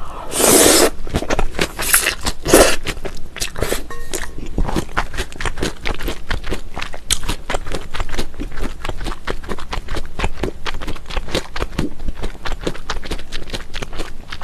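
Close-up eating sounds of mulhoe: a loud slurp of noodles and vegetables in cold broth about half a second in, a couple more shorter slurps a second or two later, then steady wet, crunchy chewing of raw fish and julienned vegetables in quick, closely spaced clicks.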